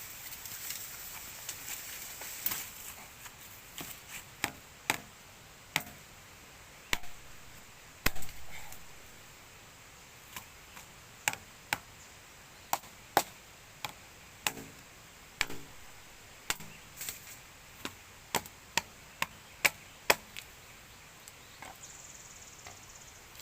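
A long series of sharp chopping strikes at uneven spacing, roughly one or two a second, the loudest about eight seconds in.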